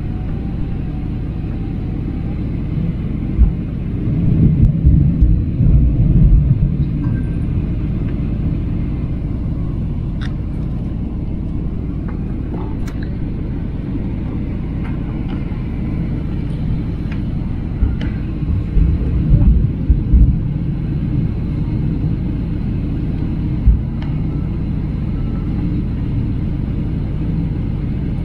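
Steady low rumble of an airliner cabin during its descent to land: engine and airflow noise carried through the fuselage. A cluster of brief low thumps comes a few seconds in, and another about two-thirds of the way through.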